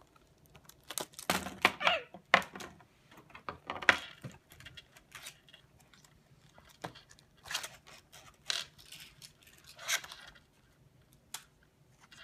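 Clear plastic toy packaging crinkling and clicking in irregular bursts as small plastic pony figures are wiggled out of it.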